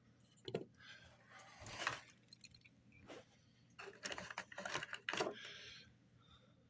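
Small diecast toy cars and their packaging being handled: irregular rustling, scraping and light clicking, busiest about four to five seconds in.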